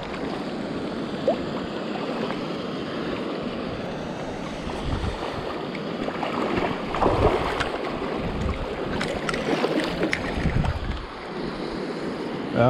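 Steady rush of river water with wind buffeting the microphone.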